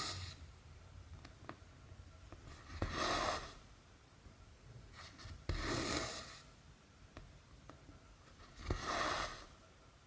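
Cotton embroidery thread being drawn through cross-stitch fabric: a soft rasping swish about every three seconds as each stitch is pulled through, with faint needle clicks in between.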